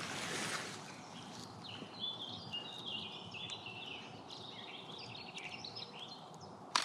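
Small birds singing and chirping, a quick run of short high notes in the middle, over faint steady outdoor background noise. A single sharp click near the end is the loudest sound.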